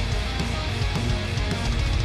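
Background rock music with distorted electric guitar and drums at a steady beat.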